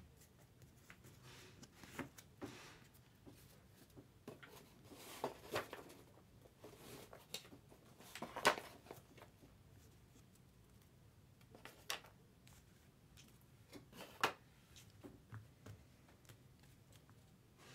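Faint rustling and light clicks of trading cards being handled and sorted, with a few sharper taps, the loudest about halfway through.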